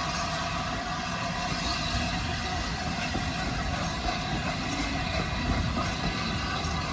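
Train running, a steady rumble and hum with no distinct beat or sudden sounds.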